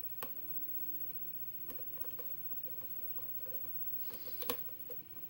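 Steel lock pick working the pins of a six-pin Sargent interchangeable core under tension: scattered small metallic clicks and scrapes, the loudest about four and a half seconds in, as pins are lifted and set during single-pin picking.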